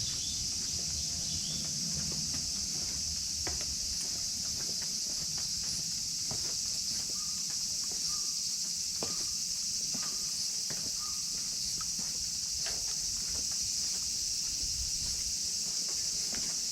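A steady, high-pitched chorus of insects drones without a break. Scattered light taps and clicks sound through it, with a few short chirps here and there.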